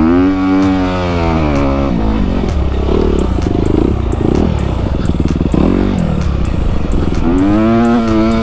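Honda CRF250 four-stroke single-cylinder dirt bike engine under throttle on a trail climb. The revs rise in the first second or so, then drop, run choppy and uneven through the middle, and climb again near the end.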